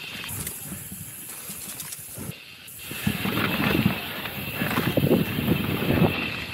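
Mountain bike riding a loose, dusty dirt trail: tyres hissing and crunching over the dirt. It gets louder and rougher about three seconds in.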